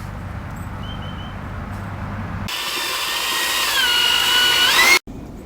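An electric power tool runs with a high whine. Its pitch sags under load, holds, then climbs back as the load eases, and it cuts off abruptly near the end. Before it starts, about halfway in, there is a steady low hum.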